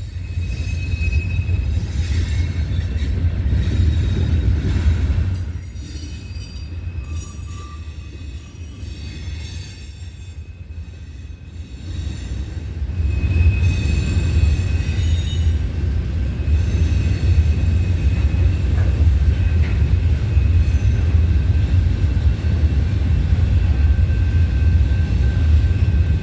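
Train rolling past, a heavy low rumble with thin, high wheel squeals. It quietens for several seconds about a quarter of the way in, then swells again.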